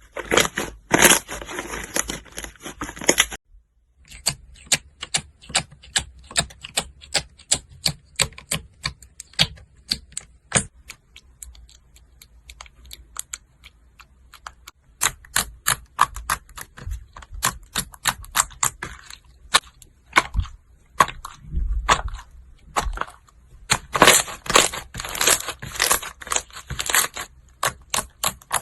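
Slime being squeezed and pressed by hand, giving rapid crackling clicks and pops as air pockets burst. There is a brief break about three and a half seconds in, and the popping is densest near the start and again near the end.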